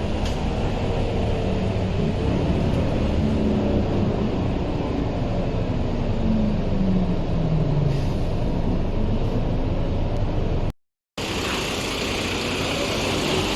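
Scania K230UB city bus heard from on board while running, a steady rumble with a droning tone that falls slowly in pitch in the middle as the bus slows. The sound cuts out for a moment, then comes back with a tone rising in pitch as the bus pulls away again.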